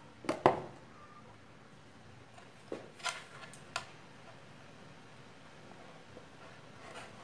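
A saw blade and motor assembly handled against a plywood table: a couple of sharp wooden knocks about half a second in, the second the loudest, then a few lighter clacks and clicks as it is fitted into the slot. The motor is not running.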